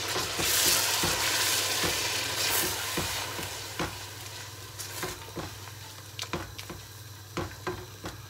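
Tomato purée sizzling in hot oil and fried onions as it is stirred in a metal pot with a silicone spatula. The sizzle is loudest for the first few seconds, then dies down, leaving the spatula scraping and tapping against the pot.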